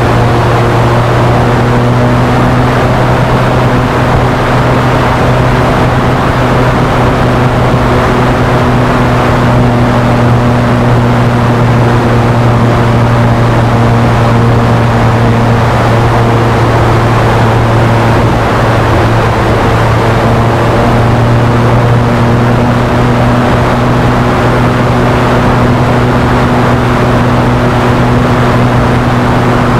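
A large radio-controlled Spitfire model's 60cc gasoline engine running steadily in flight, heard close up from a camera mounted on the model's tail.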